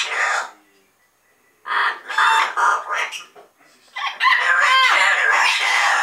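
Double yellow-headed Amazon parrots calling and chattering in loud bursts, with a break of about a second near the start and a long call that slides up and down in pitch in the last two seconds.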